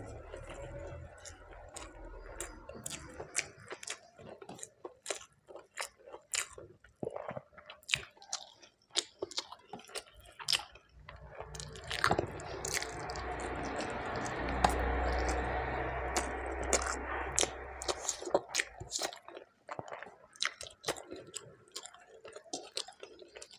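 Close-miked chewing of food, with many wet mouth clicks. From about the middle, a louder, steady rushing noise runs for around six seconds, then the chewing goes on alone.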